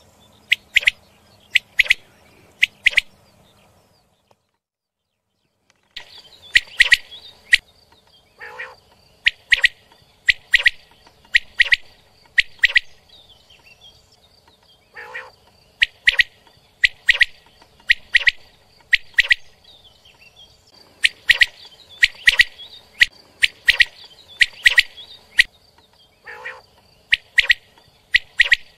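Common quail singing: loud, sharp, liquid notes repeated in short quick phrases, with a few lower, rougher notes between them. A break of about two seconds comes near the start.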